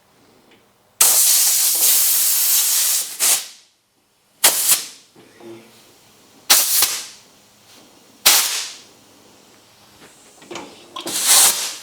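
Compressed air hissing in bursts as it is fed into and let out of a hydraulic cylinder used as an air ram: one long blast of about two seconds, then four short puffs that each start sharply and fade quickly.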